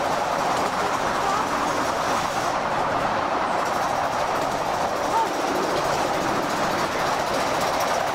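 Ride-on miniature steam train running along its track: a steady clatter of the cars' wheels on the rails.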